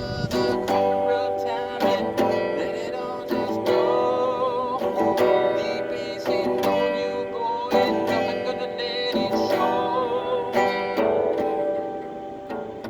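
Music: a band playing a guitar-led passage with strummed guitar and a wavering melody line over it.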